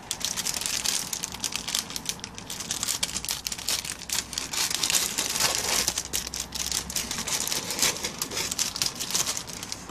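Thin clear plastic packaging bag crinkling and rustling continuously, with many small irregular crackles, as hands pull it open and spread it out into a long sheet.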